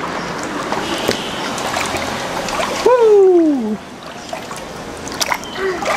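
Water swishing and splashing as small toy dolls are pushed through shallow water by hand. About three seconds in, a voice gives one long falling 'whoo', after which the water goes quieter with a few small drips and ticks.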